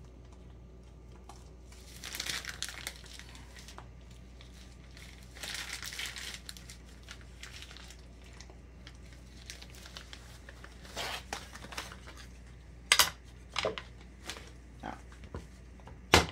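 Plastic piping bag crinkling in a few bursts as buttercream is squeezed out of it, followed in the second half by several sharp knocks, the loudest near the end.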